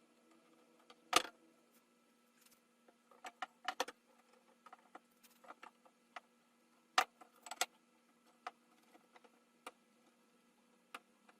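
Scattered sharp clicks and knocks of tools and clamps being handled while repairing a wooden chair. The loudest knock comes about a second in, with a quick cluster around four seconds and two more near the middle, all over a faint steady hum.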